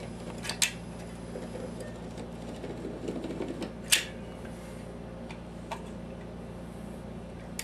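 A manual caulk gun clicking a few times as caulk is pressed into the molding seams, the loudest click about four seconds in, over a steady low hum.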